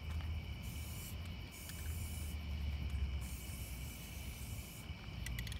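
Aerosol spray-paint can spraying in three hissing bursts, the last one longest, as black letters are sprayed on; steady insect chirring underneath, and a few sharp clicks near the end.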